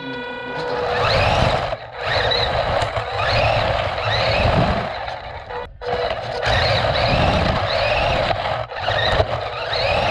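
Electric RC monster truck driving fast on pavement, heard from on board: the motor and gears whine upward in pitch each time it accelerates, over steady rumble and hiss from the tyres and the rushing air. The sound cuts out briefly a few times.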